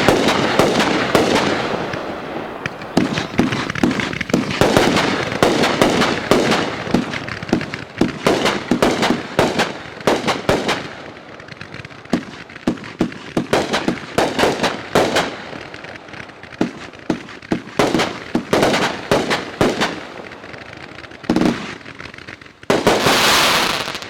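A 500-gram, 30-shot aerial repeater cake firing: a run of bangs as the shots launch and break, with strobe crackling between them. It is dense at first, then the shots come spaced out, and a loud burst of crackle near the end is followed by a sudden stop as the cake finishes.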